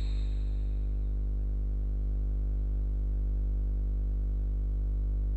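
Steady low electrical hum made of a stack of even tones that never changes: mains hum picked up through the recording setup.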